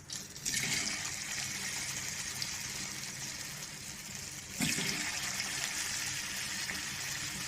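Batter-coated chicken pieces sizzling as they deep-fry in hot oil. The sizzle starts about half a second in and swells again about four and a half seconds in.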